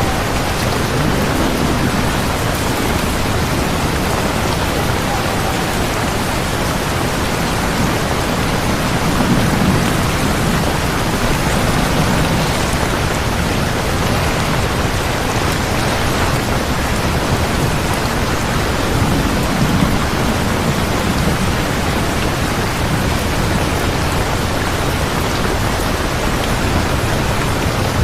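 Steady heavy rain, a dense even hiss, with soft low rumbles swelling twice.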